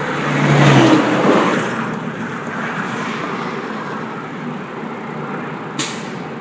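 Highway traffic noise: a vehicle passing swells up about a second in, with engine hum and tyre noise, then slowly fades. A single short sharp click comes near the end.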